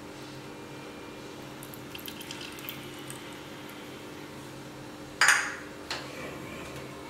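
Coconut oil poured from a cup into a hot clay chatti, with a few faint crackles after. About five seconds in, a loud clatter of kitchenware, then a smaller knock.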